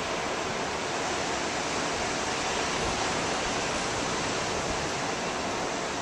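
Steady rush of ocean surf.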